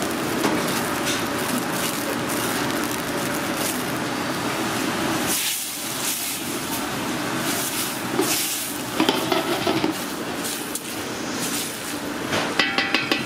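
Diced onions sizzling as they fry in fat in a large stainless steel stock pot, stirred with a wooden spoon, with a few scrapes and knocks of the spoon against the pot near the end.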